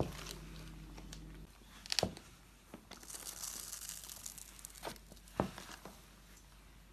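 A sneaker sole pressing down on small candy-coated chocolates on a wooden floor, giving scattered sharp cracks and a stretch of crackling crunching, with the sharpest crack near the end.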